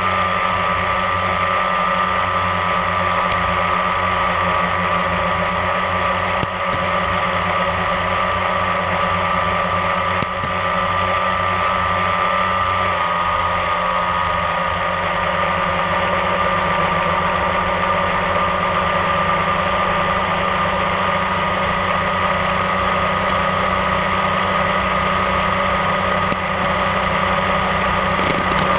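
Small multirotor drone's electric motors and propellers whining steadily in flight, heard from the drone itself. The whine's pitch drops slightly about halfway through.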